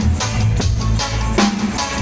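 Live reggae band playing an instrumental passage: a steady bass line under a drum kit with sharp snare and rimshot hits.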